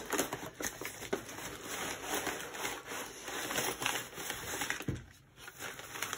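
Crinkly rustling and light scraping of a parcel being handled: a plastic-wrapped bundle slid out of a cardboard shipping box, with many small crackles. It quiets briefly about five seconds in.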